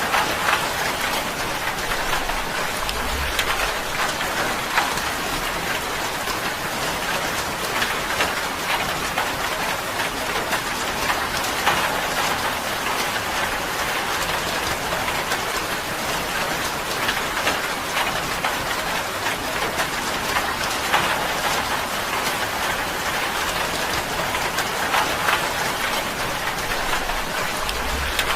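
Steady rain drumming on a tin roof, a dense, even patter of drops with many small individual taps.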